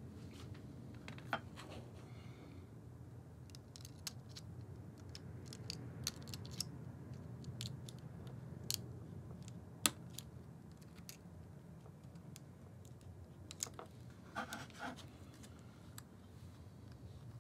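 Small clicks, taps and scratches of fingers handling a flex ribbon cable and the plastic rear-screen assembly of a Nikon Z50, as the replacement cable is fitted into it. A sharp click about ten seconds in and a short flurry of clicks near the end, over a low steady hum.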